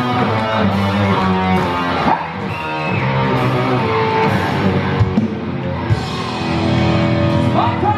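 A live rock band playing: guitar over a drum kit, with loud, sustained chords.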